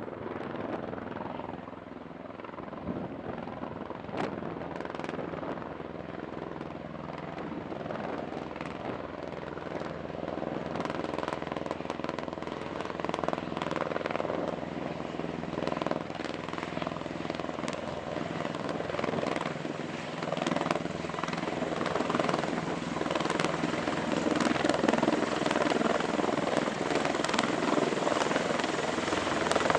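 V-22 Osprey tiltrotor flying in helicopter mode, its rotor and engine noise growing steadily louder as it approaches to land.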